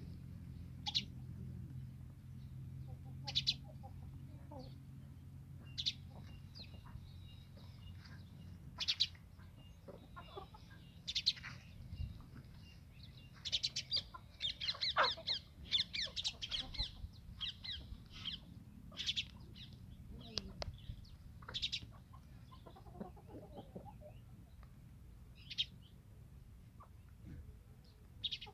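Desi chickens in a farmyard pen: clucking and short high-pitched chirps and peeps every few seconds, with a run of rapid chirping about halfway through.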